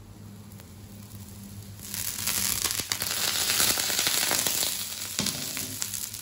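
Oil drizzled around cornmeal pancakes sizzling in a hot iron wok; the sizzle starts about two seconds in, is loudest in the middle and eases off near the end.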